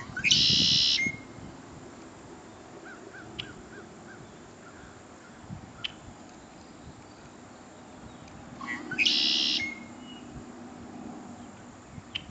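A bird calling twice, about eight seconds apart, each call high-pitched and under a second long and ending in a short lower note, with faint soft chirps between.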